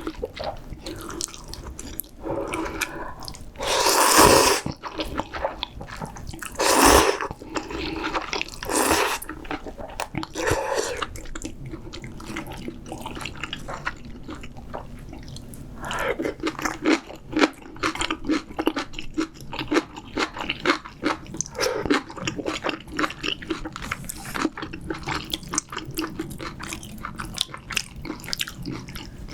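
Close-miked eating of spicy seafood ramyeon: a few loud slurps of noodles in the first ten seconds, then steady wet chewing from about sixteen seconds on.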